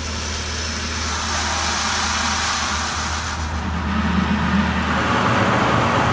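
Automatic car wash's spot-free rinse spraying water onto the car, heard from inside the cabin as a steady hiss that grows louder over the last couple of seconds. Under it runs a low steady hum that fades out about five seconds in.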